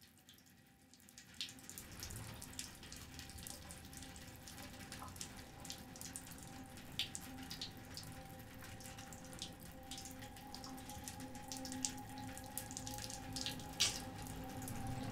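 Water running from a bathtub tap and splashing onto a hand held under it, with scattered sharp drips and splashes over a steady rush. It comes in after about a second and a half of near silence, grows slowly louder, and has a faint steady hum underneath.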